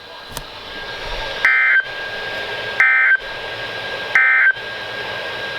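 NOAA Weather Radio SAME end-of-message signal: three short bursts of warbling digital data tones, about one and a half seconds apart, over radio hiss, marking the end of the severe thunderstorm warning broadcast.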